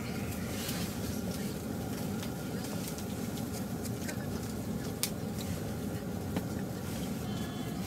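Portable butane cassette gas stove burning steadily under a pot of stew at a rolling boil, a continuous low rushing rumble. A few sharp taps or clicks come over it, the loudest about five seconds in.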